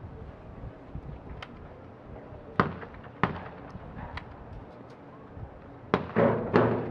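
12-gauge over-and-under shotgun fired twice at a skeet double, two reports about half a second apart near the end, each with an echo. Two fainter sharp cracks come earlier.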